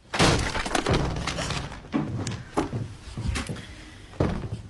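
A door being banged on and rattled: an irregular run of about ten sharp thumps and knocks, with the loudest in the first second and another about four seconds in.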